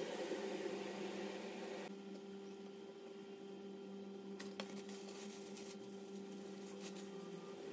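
Cling film crinkling softly as it is handled and twisted around a ball of mochi, with a few light ticks after the middle, over a steady low electrical hum.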